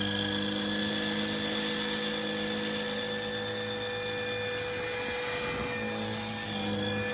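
Roidmi X30 Pro cordless stick vacuum running steadily: a high motor whine over a low hum. The low hum shifts slightly about two-thirds of the way through.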